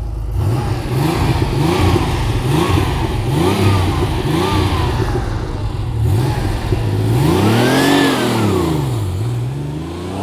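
Porsche 964 Turbo's air-cooled, turbocharged flat-six, heard from inside the cabin, revving hard. The engine pitch rises and falls in quick swells about once a second, then makes one longer climb and drop about eight seconds in.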